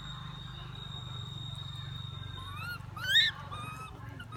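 Pigtail macaque giving a short run of shrill, rising squeals about two and a half seconds in, the loudest near three seconds. Before the calls a thin, steady high whine runs and then stops, over a low steady hum.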